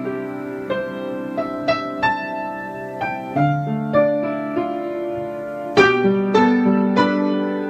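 Slow, soft piano music: single notes struck over held chords, a new note roughly every half second.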